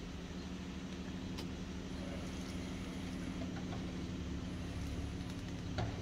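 Steady low mechanical hum, like an engine running out of sight, with a few faint clicks and one sharper click near the end.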